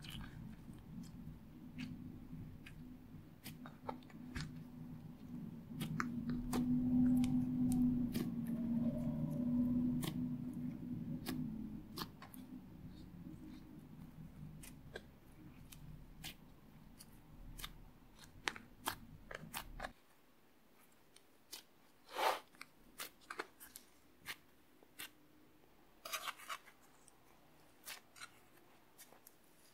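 Fluffy slime being kneaded into kinetic sand: a run of small crackles, clicks and squishes as the sandy slime is pressed and pulled. A low hum sits under the first two-thirds and cuts off suddenly.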